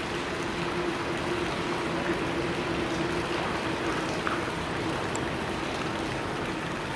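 Steady rushing noise like running water, with a steady hum underneath that fades away about six seconds in.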